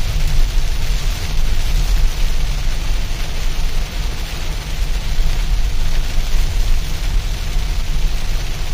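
Heavy rain falling steadily on a moving car, with a steady low rumble from the car on the road underneath.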